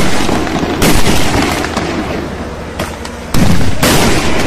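Home-made fireworks exploding: a series of about four loud bangs, one at the start, one just under a second in and two close together near the end, each dying away over a second or so.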